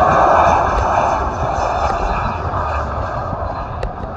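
Jet engine noise of an easyJet Airbus A320-family airliner on arrival: a loud, broad rush that fades gradually as the aircraft moves away.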